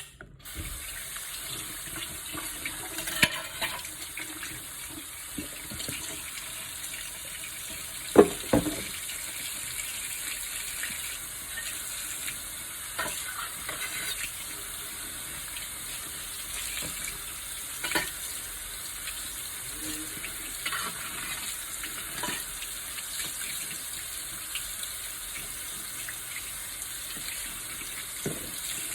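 Water running steadily, as from a kitchen tap, with a few sharp knocks, the loudest about eight seconds in.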